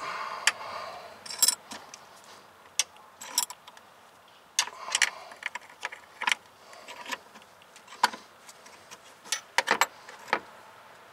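Small metal tools clicking and clinking on a steel brake line while a bubble flare is formed in it, with a few short scrapes. The sharp clicks come at uneven intervals and bunch together near the end.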